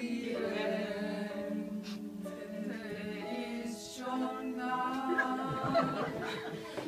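Small group of women singing a German song unaccompanied, in harmony, on long held notes. A higher voice joins about four seconds in.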